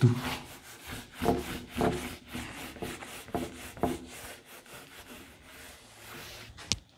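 A handheld eraser wiping marker off a whiteboard in a run of irregular rubbing strokes, about one every half second to second, easing off after about five seconds. A single sharp click comes just before the end.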